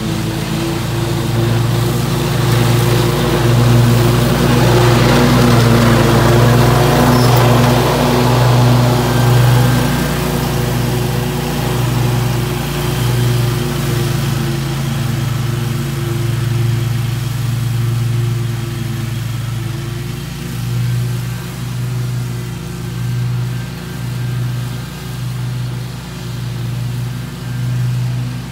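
Scag Tiger Cat II zero-turn mower running with its blades cutting thick grass: a steady engine hum with a hissing cutting noise. It is loudest for the first several seconds, then fades as it drives away, with the sound swelling and dipping near the end.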